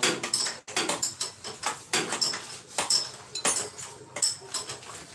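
Irregular metallic clicks and clanks of hand tools and metal parts knocking against each other while a Toyota Vios engine is being worked on during an overhaul, some strikes ringing briefly.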